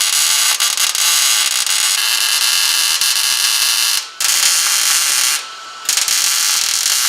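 Electric arc welder laying short welds on a steel trunk-floor brace: a loud, steady crackling hiss that breaks off briefly about four seconds in and again near five and a half seconds, between welds.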